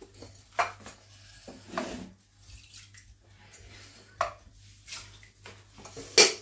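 A ceramic salt pot with a wooden lid being handled while salt is added to a stainless steel pot of water: a few light knocks and clinks, the sharpest one near the end.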